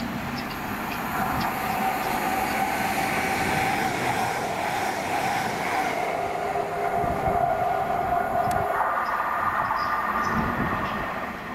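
A train moving through a station: a steady whine holds over the rumble of wheels on rail, with the sound shifting higher about three-quarters of the way through.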